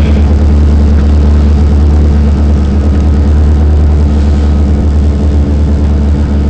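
Rally car's engine idling steadily while the car sits stationary, heard from inside the cabin: an even, loud, low hum with no revving.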